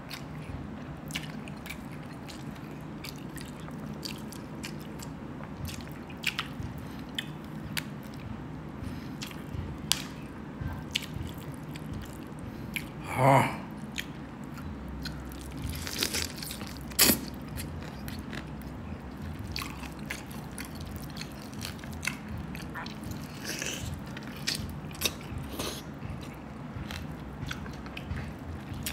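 Close-up mouth sounds of someone eating lechon roast pork with their hands: wet chewing, biting and lip-smacking, made of many short clicks. There are louder single sounds about 13 and 17 seconds in.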